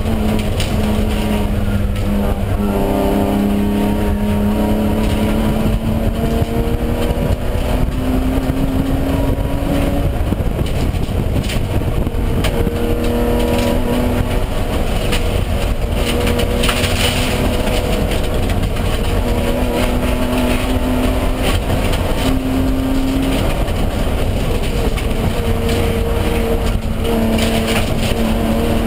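Interior sound of an ITR-spec BMW 325i (E36) race car's 2.5-litre straight-six working hard at speed. Its pitch climbs through each gear and drops back at shifts and lifts, over a steady rush of road noise.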